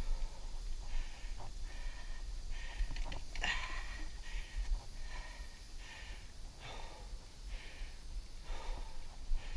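Mountain biker breathing hard while riding, a quick breath about every two-thirds of a second, with one louder breath about three and a half seconds in, over a steady low rumble.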